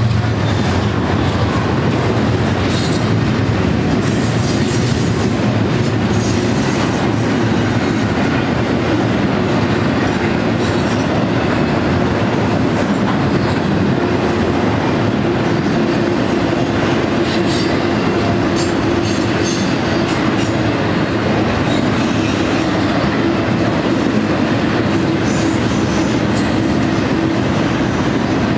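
Double-stack intermodal freight train's well cars rolling past, a steady loud rumble of steel wheels on rail with scattered clicks over the rail joints. A thin, high wheel squeal comes in briefly a few times.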